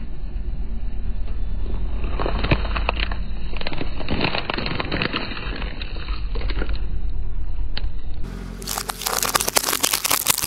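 Car tyre rolling slowly over Skittles candy pouches: plastic packaging crinkling and crackling with many small cracks over a low steady rumble. About 8 seconds in, the sound cuts to a tyre crushing small plastic bottles capped with balloons, a dense run of sharp cracks.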